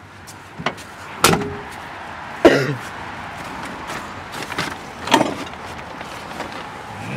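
A few sharp knocks and thuds with handling rustle between them: a pickup truck door shutting and the camera being bumped about. The loudest come about a second in and at two and a half seconds.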